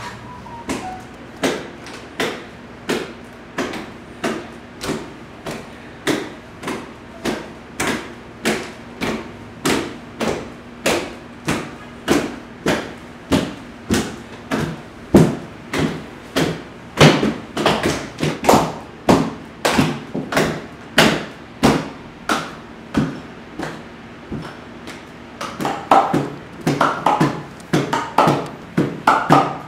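Steady, evenly spaced knocking or tapping, about three beats every two seconds, over a low steady hum; near the end further higher, busier sounds join the beat.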